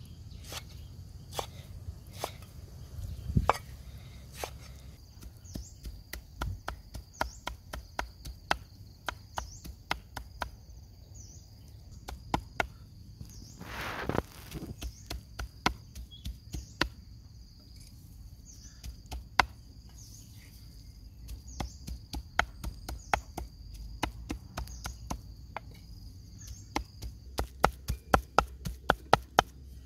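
Cleaver chopping raw pork on a round wooden chopping block, mincing the meat: a long series of sharp knocks, quickening into a faster, louder run near the end.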